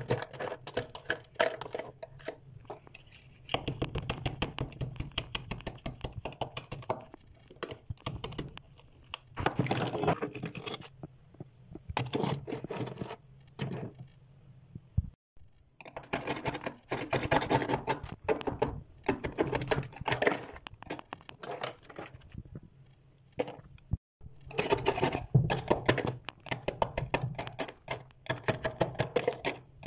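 Thick freezer frost being scraped and broken off the freezer walls by hand: rapid crackling scrapes in bouts of a few seconds, with short pauses between them.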